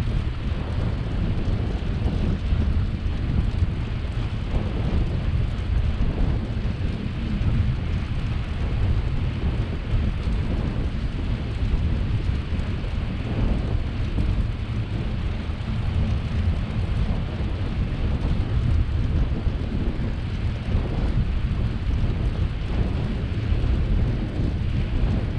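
Wind rushing over the microphone of a camera on a moving bicycle: a steady low rumble with a hiss above it.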